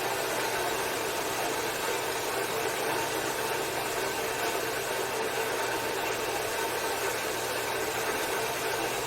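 Electric shop machine running steadily: an even whirring noise with a motor hum under it.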